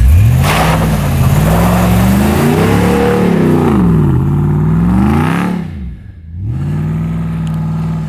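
6.4-litre HEMI V8 of a Ram 2500 Power Wagon revving hard as the truck accelerates on snow, with the tyres spinning and throwing snow. The revs sweep up, rise and fall for about five seconds, and break off. About six and a half seconds in, a second rev rises and holds.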